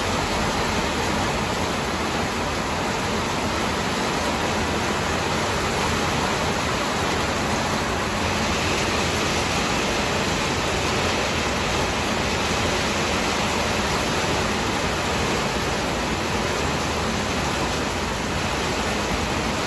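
Steady hiss of a rain shower falling, heard from under a covered patio.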